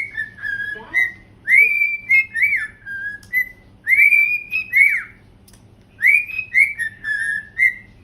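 A pet parrot whistling the same short tune over and over: a phrase of several clear, rising-and-falling whistled notes about every two seconds.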